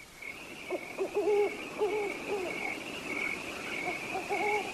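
Night ambience: crickets chirping about twice a second, with an owl hooting in short runs of notes starting just under a second in.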